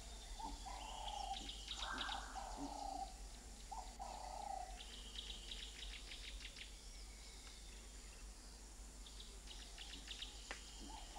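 Wild birds calling: several short, rough calls in the first half and again near the end, with bursts of rapid, high chirping in between, all faint.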